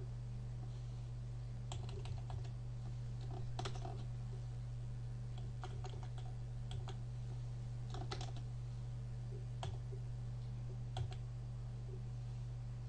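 Computer keyboard keystrokes, a few at a time in irregular short clusters with pauses between, over a steady low hum.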